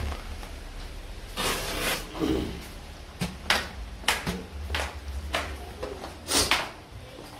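Handling noise: a few short, irregular rustling scrapes and knocks over a steady low rumble, as the phone is moved about under an umbrella.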